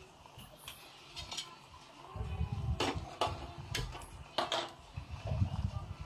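Stainless-steel ladle clinking and scraping against a stainless-steel saucepan while melting butter is stirred on the way to ghee. Several separate sharp clinks, over a low rumble that comes in about two seconds in.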